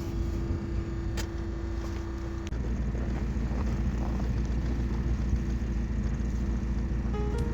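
Car engine running with a steady low rumble that grows stronger about two and a half seconds in.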